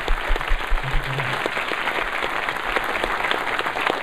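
Audience applauding: a steady crowd of hand claps, with some louder claps close by during the first second or so.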